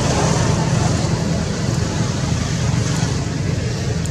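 Steady rushing background noise, heaviest in the low range, with no distinct events.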